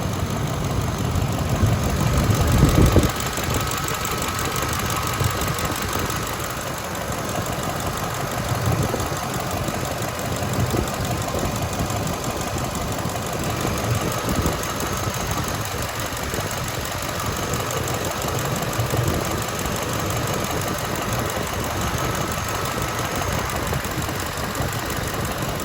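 Ford 5.4 Triton V8 running at idle while still cold, in an engine being checked for a cylinder 4 misfire caused by water in the spark plug well. It runs steadily, a little louder for a moment about two to three seconds in.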